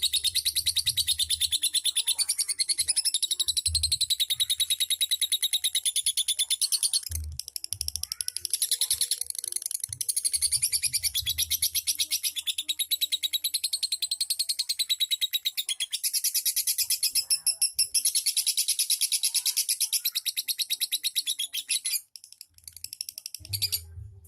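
Lovebird singing a long, rapid, high-pitched chattering trill (the 'ngekek' song), nearly unbroken, with brief pauses about a third of the way in and again later, stopping shortly before the end.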